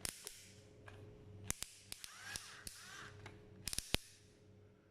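Clutch ring of a cheap 12 V cordless drill/screwdriver being turned through its torque settings, its detents giving a series of sharp, irregular clicks.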